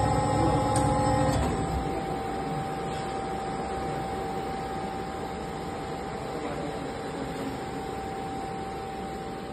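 Nectar 170-ton hydraulic injection moulding machine running: a steady mechanical hum with a constant high whine. A louder layer of sound cuts off about a second and a half in.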